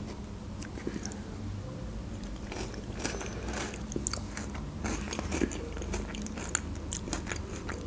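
Close-miked eating sounds: a metal spoon scraping and tapping in a plastic yogurt pot, then chewing and mouth clicks from a spoonful of yogurt dessert, as scattered short clicks.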